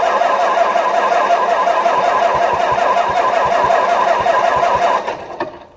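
Starter cranking the White 160AX 386 cu in six-cylinder gasoline engine in an even rhythm for about five seconds without it catching, then stopping. This is a start attempt on the freshly rebuilt engine.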